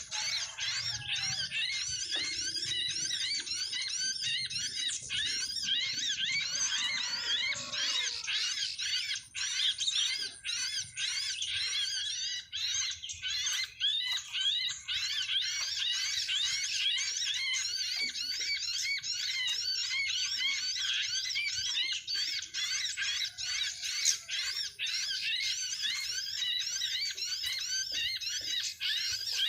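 A dense, continuous chorus of many small birds chirping over one another, high-pitched and unbroken. It is the kind of busy twittering used to lure birds to a trap.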